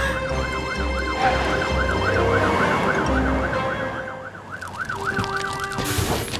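Cartoon fire truck siren, a fast up-and-down wail repeating about three times a second, too quiet to be heard over the trucks. Low truck engine rumble underneath through the first half, stopping about three and a half seconds in.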